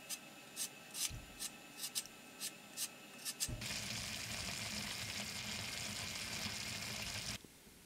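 A kitchen knife shaving burdock root into thin slivers, with about ten quick scraping strokes. About three and a half seconds in, this gives way to beef and burdock simmering in broth in a pan with a steady hiss, which cuts off abruptly near the end.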